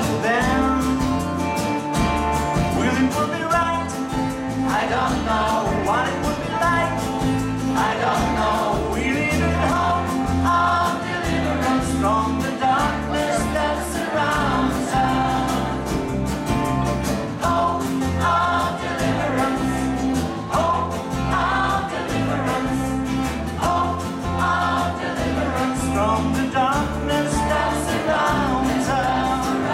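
A large women's choir singing live, accompanied by acoustic guitar.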